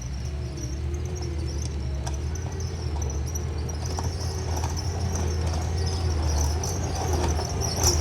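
Skid steer engine running steadily with a low drone, slowly growing louder.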